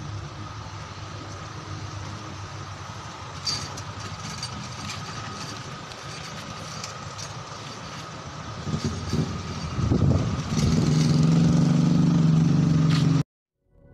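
Steady engine and traffic hum, then a vehicle engine close by grows louder about nine seconds in and runs loud and steady before cutting off abruptly near the end.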